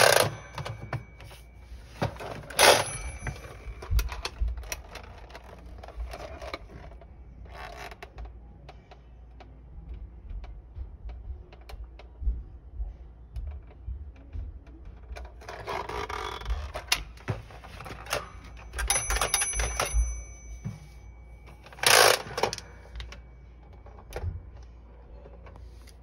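Vintage 1977 Tomy Tutor Typer plastic toy typewriter being handled and turned over: scattered sharp plastic clacks and knocks, with loud ones at the start, about three seconds in and near the end. A short bell ring comes with the knock about three seconds in.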